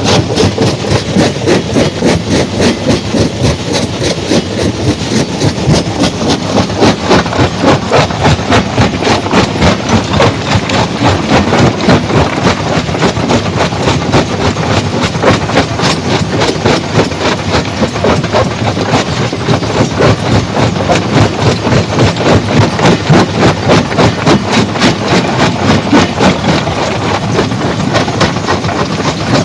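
Heavy stone-crushing machinery running continuously with a fast, even, rhythmic clatter, about three pulses a second.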